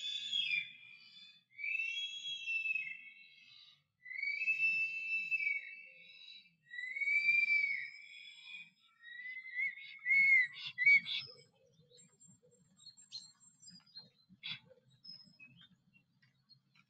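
Male black stork singing at the nest: a series of about five drawn-out whistled calls, each rising and falling in pitch, over the first eleven seconds. The series ends in a few sharp clicks, and after that only faint scattered bird notes remain.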